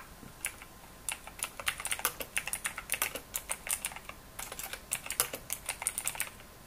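Typing on a computer keyboard: quick runs of keystroke clicks entering a search query, with a brief pause about four seconds in.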